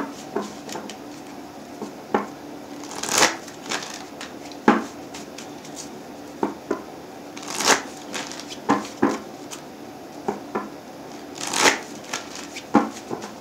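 A deck of reading cards being shuffled by hand, in short rustling, slapping bursts every second or so; the longest and loudest come about three, eight and twelve seconds in.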